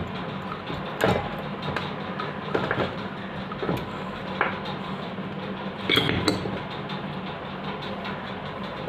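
Metal clinks and knocks as a steel screw-type bearing puller is handled and fitted onto a fan motor's metal end cover: half a dozen sharp clanks, the loudest about six seconds in, over a steady low hum.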